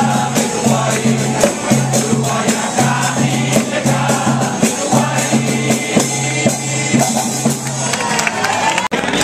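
Carnival chorus music from a float: group singing with instrumental accompaniment and percussion keeping a steady beat. The sound drops out briefly near the end.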